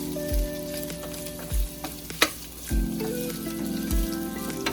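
Boiled chicken pieces frying and sizzling in hot oil in a non-stick pan, stirred and tossed with a spatula that knocks against the pan, sharpest about two seconds in.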